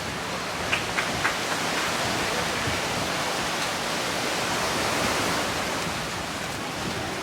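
Steady rushing noise of wind and water on the open sea during a fast ride on the water, with three short clicks about a second in.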